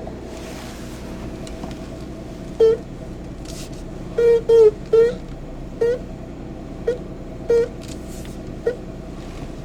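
Rubber steering shaft boot of a Suzuki Every DA64 squeaking as the steering wheel is turned: about eight short, high squeaks, some single and some in quick clusters, over a steady low hum. The squeak comes from the dry rubber boot rubbing on the shaft and goes away once it is lubricated.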